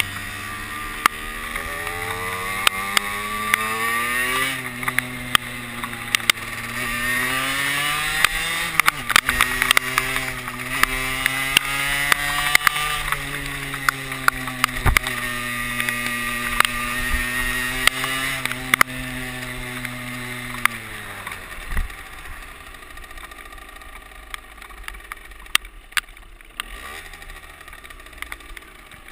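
Derbi Senda 50cc moped's two-stroke engine accelerating through the gears. Its pitch climbs and drops back at gear changes about 4 and 9 seconds in, holds fairly steady, then falls away and fades after about 20 seconds as the throttle is closed. Wind knocks on the helmet microphone.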